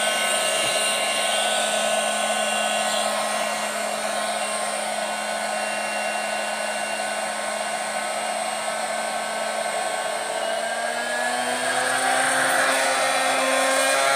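Small electric air pump (SG668A two-way inflator/deflator) running steadily in deflate mode, sucking the air out of an inflatable pool through its valve. Its whine rises in pitch over the last few seconds.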